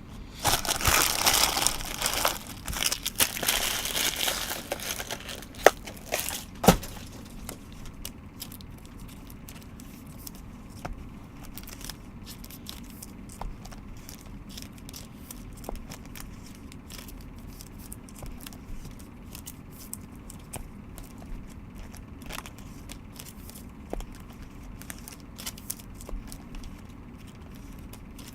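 Foil card-pack wrapper crinkling and tearing open for the first several seconds, with a couple of sharp clicks, then faint clicks and rustles of trading cards being handled.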